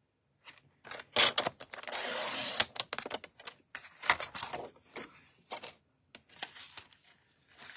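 Stampin' Trimmer's sliding blade cutting through cardstock: a few clicks, then a steady scraping slide of about a second and a half. Scattered clicks and paper rustles follow as the cut card is handled.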